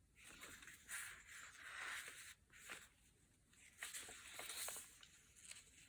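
Faint rustling and brushing of paper as pages of a handmade junk journal are turned and handled, in several short bouts.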